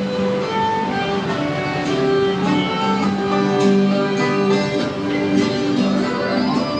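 Instrumental music with violin and guitar, held melodic notes changing every second or so.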